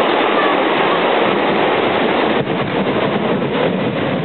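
Water rushing steadily over a river weir, a loud, even, continuous noise.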